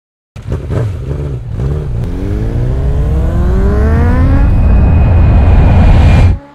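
Motorcycle engine accelerating hard, its pitch rising steadily and the sound growing louder, then cutting off abruptly just before the end.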